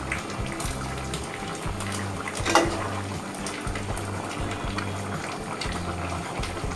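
Hilsa and bottle-gourd curry bubbling at a simmer in an aluminium pot as a metal ladle moves through it. There is one sharp knock of the ladle against the pot about two and a half seconds in.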